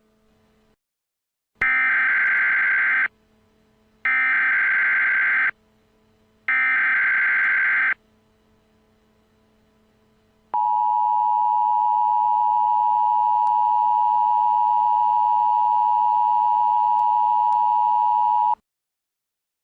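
Emergency Alert System broadcast tones. Three short bursts of the SAME digital header data, each about a second and a half, are followed by the two-tone attention signal held steady for about eight seconds.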